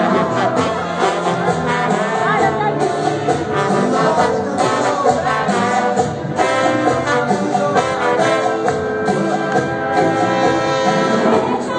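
Loud live band music from the stage, with a steady beat and long held melodic notes over it.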